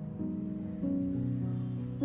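Instrumental background music: soft sustained notes, with a new note entering every half second or so.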